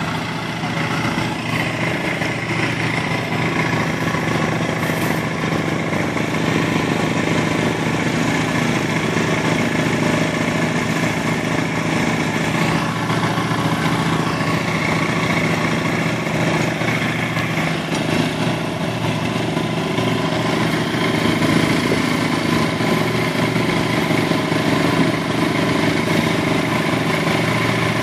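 Motor vehicle engine idling steadily, with no revving.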